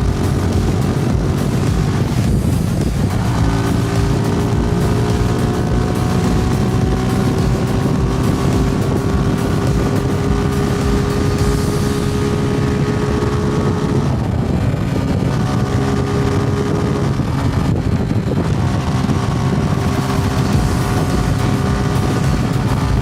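Suzuki Gixxer SF's single-cylinder engine and exhaust under way, the pitch climbing slowly as the bike pulls, then dropping sharply three times before climbing again, as with gear changes or easing off the throttle. Wind rushes over the microphone.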